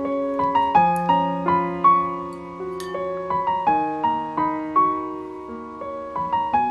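Background piano music: a gentle melody of single struck notes, each fading before the next, at a steady easy pace.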